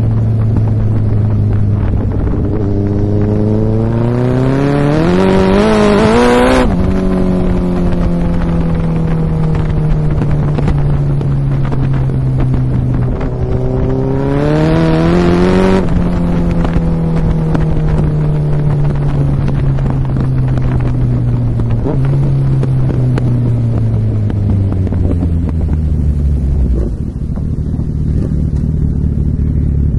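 Suzuki Hayabusa sport bike's engine and exhaust under riding. The revs climb hard and it shifts up with a sudden drop in pitch about six seconds in, and again about sixteen seconds in. In between the revs sink slowly as the bike rolls off. There is a downshift blip a little past twenty seconds, and the engine settles low near the end.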